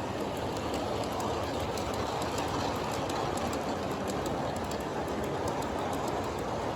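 A G-scale model train pulled by two USA Trains GP38-2 locomotives running along garden railroad track. It makes a steady whirring rumble, with many light, quick clicks from the wheels on the rails.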